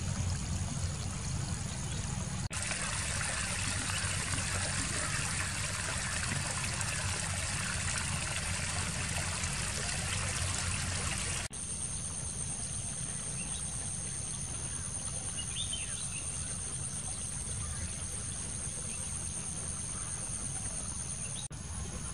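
Rainwater runoff trickling and flowing through shallow grassy and muddy field channels, over a steady high insect drone. The sound changes abruptly twice, about two and a half and eleven and a half seconds in.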